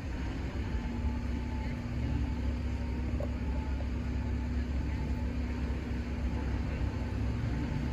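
Steady low rumble of a passing vehicle at a railway level crossing, carrying one steady engine hum; the level stays even with no sudden sounds.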